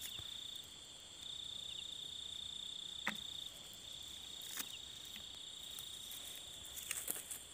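Crickets trilling steadily in a high, continuous note that breaks off briefly twice, with a few light clicks.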